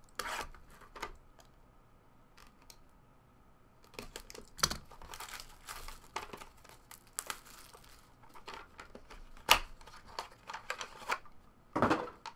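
Clear plastic shrink wrap on a trading-card box being torn open and crumpled, a dense crinkling mostly in the middle, with sharp taps and clicks of the cardboard box being handled scattered through and a loud crackle near the end.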